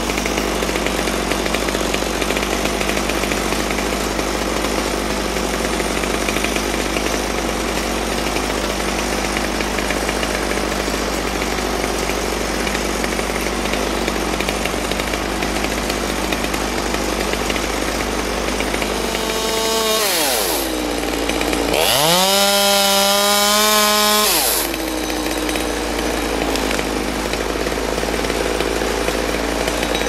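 Chainsaw running at idle, its pitch dipping and rising around nineteen seconds in, then revved high for about three seconds during a cut before falling back to idle.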